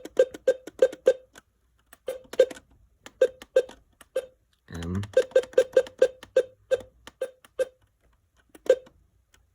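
Alert Works EAR-10 weather radio keypad beeping as its buttons are pressed to program a new alert. Short, same-pitched beeps come in quick runs of two to six, with pauses between, and a single beep near the end.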